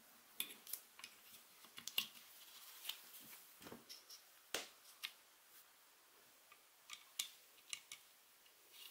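Light plastic clicks and knocks, about a dozen at irregular intervals, from a small red plastic switch part being handled and fitted into a drill's plastic housing.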